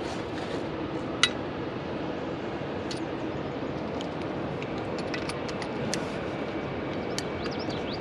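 Steady rush of water flowing below a dam, with scattered light clicks and one sharp clink about a second in.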